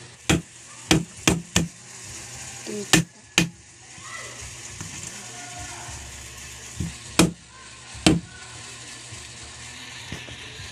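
Kitchen knife chopping ginger root on a wooden cutting board: about eight sharp chops in irregular groups, with pauses between them.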